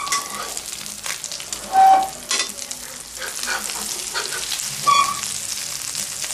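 Egg-and-pork Thai omelette frying in a few tablespoons of hot oil in a non-stick wok: a steady sizzle full of crackles. A metal spatula scrapes against the wok a few times, loudest about two seconds in and again near five seconds.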